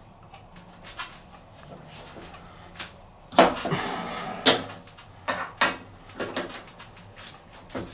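Steel adjustable wrench clinking and knocking against a washing machine's transit bolt and the plastic collar around it, with scattered short knocks, the loudest about three and a half seconds in. The bolt is hard to reach and turn.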